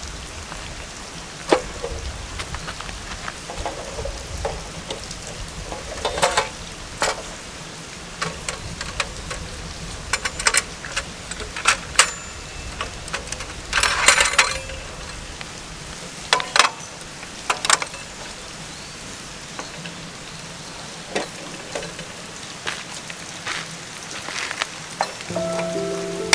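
Clicks, clacks and short rattles of a Maxbutane Fold Range folding butane camping stove being unfolded by hand, as its metal pot-support arms are swung out and locked and its lid flipped open. The handling sounds come singly every second or two, with a longer rattle about halfway through, over a steady rain-like hiss.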